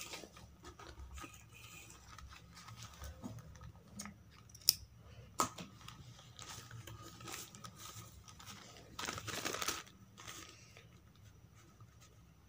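Paper and cloth being handled: a paper pattern strip crinkling and fabric strips rustling, with two sharp clicks around the middle and a longer rustle near the end.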